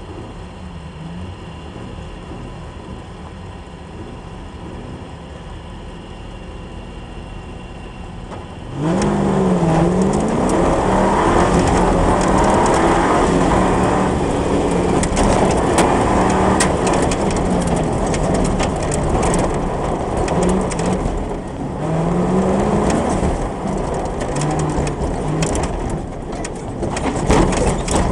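Comp safari off-road racer's engine running steadily, heard from inside the cab. About nine seconds in it revs hard as the car sets off, its pitch rising and falling through the gears, over a constant clatter of knocks from the car on the rough dirt track.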